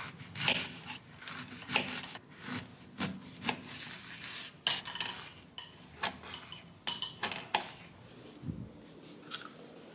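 A knife clicking and scraping against a dish at irregular intervals as a pear is cut.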